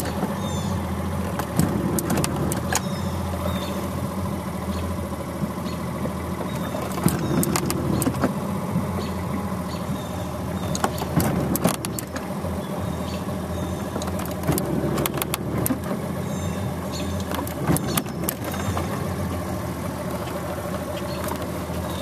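Small boat motor running steadily as the boat moves along, a constant low hum, with sharp clicks or knocks now and then.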